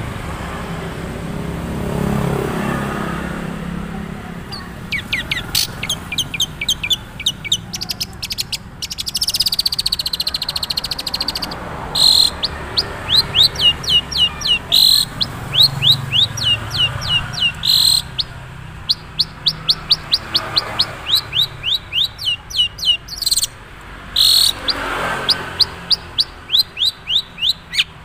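Long-tailed shrike (cendet) from Madura singing its own natural song, with few learned imitations yet: a rapid series of short, high, falling chirps, about three or four a second, starting about five seconds in, with a few short harsh notes mixed in.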